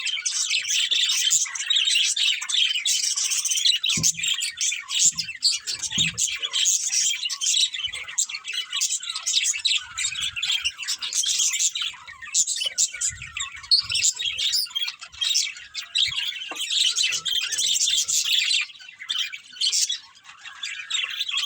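Several budgerigars chirping together: a dense, continuous run of short, overlapping high chirps and squawks.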